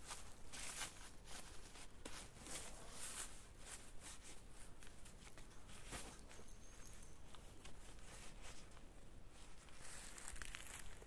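Faint, irregular rustling and crackling of dry leaf litter underfoot, with small handling noises as a wooden tarp pole is adjusted.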